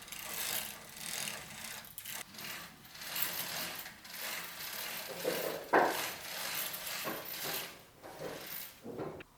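Household handling sounds: uneven rubbing and scraping strokes, with a sharper knock a little past halfway and another near the end.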